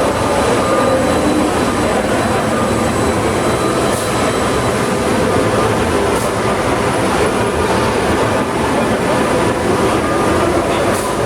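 Oxy-fuel cutting torch running with a steady, loud hiss.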